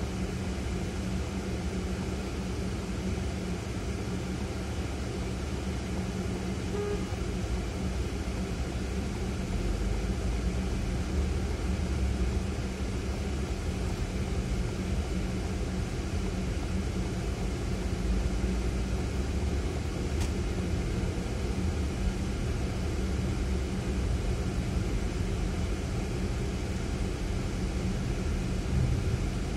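Ford Fiesta's engine and road noise heard from inside the cabin: a steady idle at first, then a deeper rumble of engine and tyres from about ten seconds in as the car pulls away and drives on.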